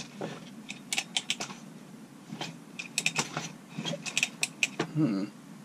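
Irregular light clicks and clinks of small parts and hand tools being handled on a workbench during a chainsaw teardown, coming in quick clusters.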